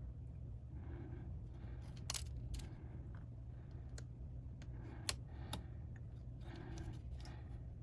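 Small metallic clicks and clinks of hand tools and tiny screws on a MacBook Pro's internals, scattered and irregular, the sharpest about five seconds in. Soft breathing close to the microphone comes about every two seconds over a low steady hum.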